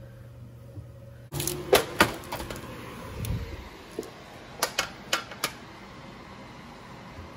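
Metal baking sheet clanking as it comes off the oven rack and is set down on a stone counter: two sharp clanks about two seconds in, a low bump, then a quick run of lighter clicks and taps.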